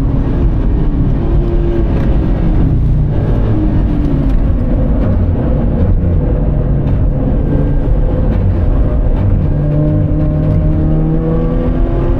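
Toyota 86 GRMN's flat-four engine heard from inside the cabin while the car is driven hard, with tyre and road noise underneath. The engine pitch rises and falls, then climbs steadily through the last few seconds as the car accelerates.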